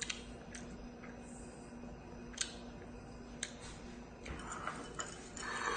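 Faint scattered clicks and soft squishing of a child eating rice and vegetables with his hands from a ceramic plate, over a steady low hum, with a louder soft rustle near the end.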